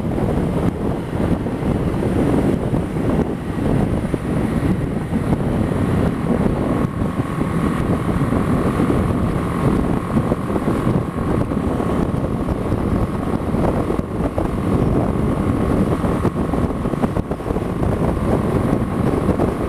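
Heavy wind noise on the microphone over a BMW G 310 GS's single-cylinder engine cruising at around 60 mph. A faint steady whine runs through the middle and later part.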